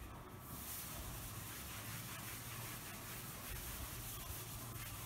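Board duster rubbing chalk off a chalkboard: a steady scrubbing hiss that comes in about half a second in.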